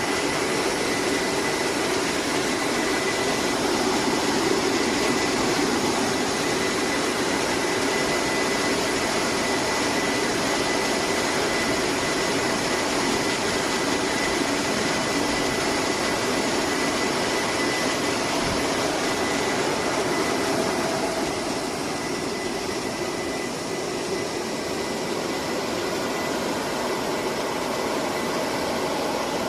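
Cherry tomato washing line running: a steady rush of water and machinery with a thin, high, steady whine that fades about two-thirds of the way through.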